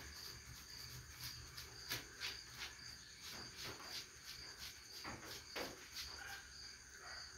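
Crickets chirping in a steady pulsing chorus. About half a dozen short, sharp noises come through it, the loudest a little under two seconds in.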